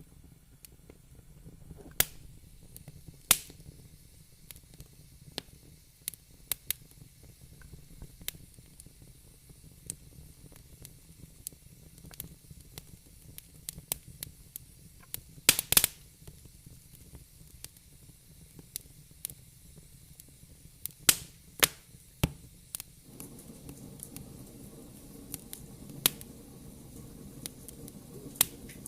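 Wood fire crackling in a fireplace: scattered sharp pops and snaps at irregular intervals, with a quick cluster of pops about halfway and another a few seconds later, over a low steady background noise.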